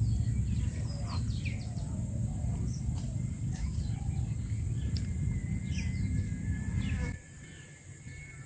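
Small birds chirping in short, falling notes over a steady high hiss and a low rumble. The rumble drops away suddenly about seven seconds in, leaving two steady high tones.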